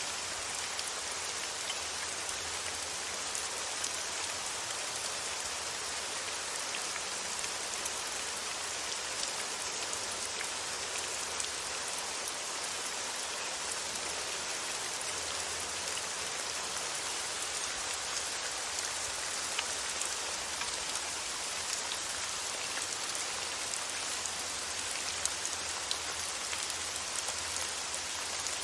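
Steady rain: an even hiss with small drop patters scattered through it.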